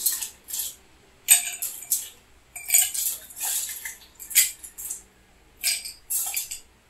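Ice cubes clattering as they are scooped from a metal bowl into a glass: about a dozen short bursts, some in quick runs of two or three.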